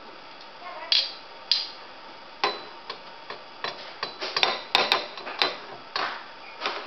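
Metal kitchen tongs clacking against a block of ice and the frying pan, with irregular sharp clicks. A few come spaced out at first, then a quick flurry about four to five and a half seconds in, over a steady faint hiss.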